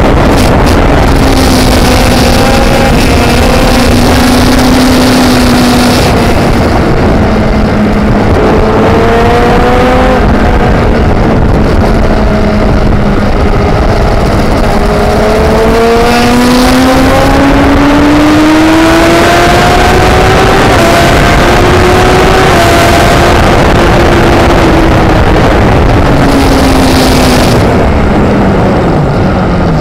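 Racing motorcycle heard onboard at speed: the engine's pitch climbs and drops as the rider accelerates, shifts gear and brakes for corners, under heavy wind rush on the microphone. The pitch climbs steadily through the middle and falls away near the end.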